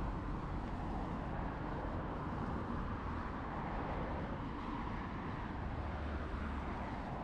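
Steady city road traffic, a continuous rumble of passing cars with no single event standing out.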